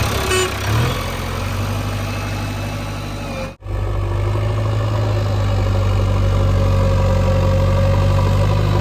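Diesel engine of a JCB 3DX backhoe loader running steadily. About three and a half seconds in, the sound cuts out for an instant and then carries on.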